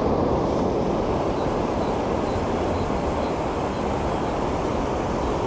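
Steady rushing of river water spilling over a weir, with an uneven low rumble underneath.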